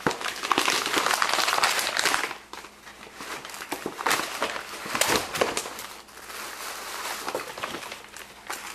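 Gift wrapping paper crinkling and rustling as it is pulled off a present. It is loudest in the first two seconds, with further short bursts about four and five seconds in, then quieter.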